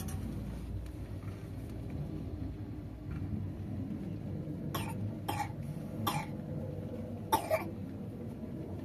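A person coughing five short times in the second half, the last two close together, over a steady low background rumble.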